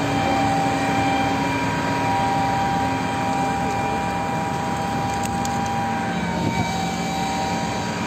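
Heavy engine running steadily: a drone with several held whining tones that dip slightly about six seconds in.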